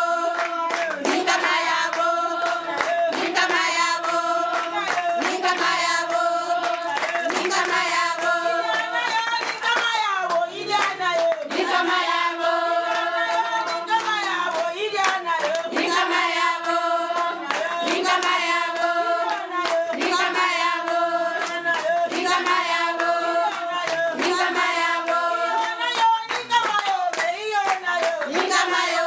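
A group of people singing together to steady rhythmic handclapping, the sung phrase repeating about every two seconds.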